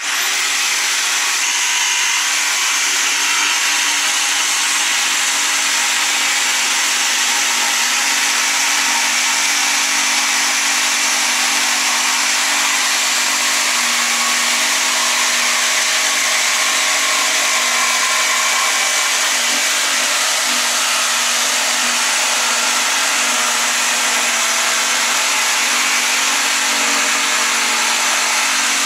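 Electric jigsaw cutting a curved hole through thick log-profile blockhouse boards, running steadily at an even, loud level.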